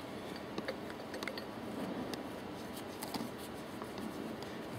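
Faint, scattered light clicks and rubbing as a bolt is threaded finger-tight into a piston pump's end cover, over a steady background hiss.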